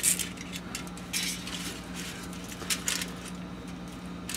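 Serrated knife sawing back and forth through a baked cake layer, with the aluminium foil under it crinkling: a few short, irregular scrapes.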